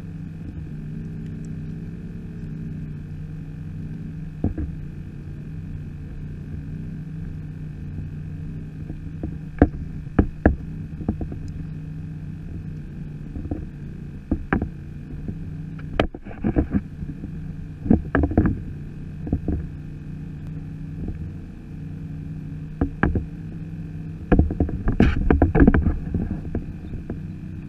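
Scattered knocks and bumps against a plastic sit-on-top kayak's hull, irregular and coming thicker near the end, over a steady low hum.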